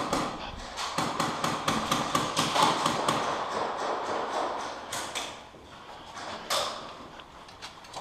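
Airsoft gun firing a fast, even string of sharp shots that fades out about four seconds in, then two single sharp cracks near the middle of the second half.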